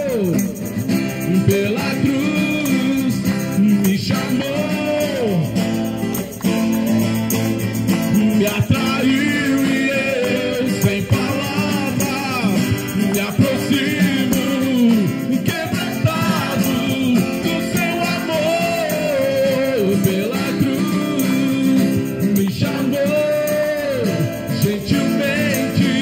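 A Portuguese-language Christian worship song: a sung melody over instrumental backing, playing steadily.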